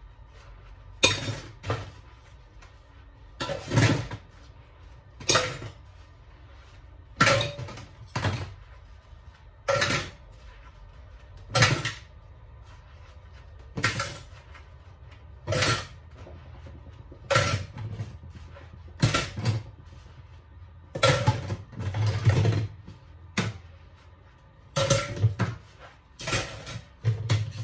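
Dishes and kitchenware clacking and knocking as they are handled and set down at a dish drainer, a sharp knock about every one and a half to two seconds, with a longer clatter about three-quarters of the way through.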